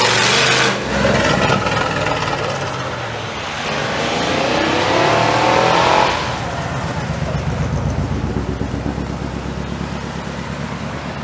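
Classic American car doing a burnout: engine at high revs with screeching tyres, cutting off just under a second in. Then an engine revs up, rising in pitch for a couple of seconds and stopping about six seconds in. After that, the low, pulsing burble of classic cars rolling slowly past.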